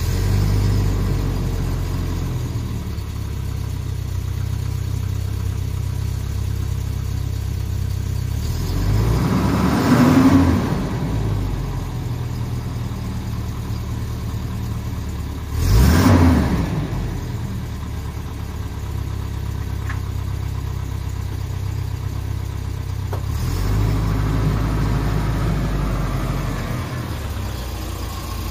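Volvo 240's B230F 2.3-litre four-cylinder engine idling just after a cold start. The throttle is blipped twice, about ten and sixteen seconds in, the engine note rising briefly and falling back to idle each time.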